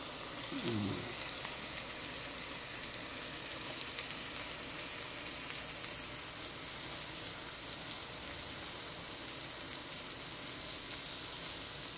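Small dried fish (ndakala) and sliced onions sizzling steadily in hot oil in a frying pan.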